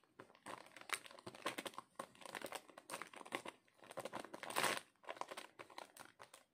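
Clear plastic packaging crinkling as it is handled, in short irregular crackles, with one louder rustle about four and a half seconds in.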